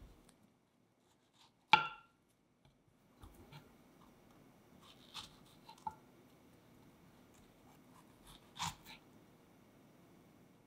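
Strawberries set down on a wooden cutting board and hulled with a small knife: a sharp knock on the board about two seconds in, then a few softer taps and scrapes scattered through the rest.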